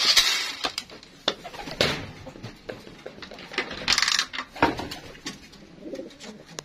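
Homing pigeons cooing and stirring in a wooden loft, with a few short rustling, scraping bursts, the loudest at the start and about two and four seconds in.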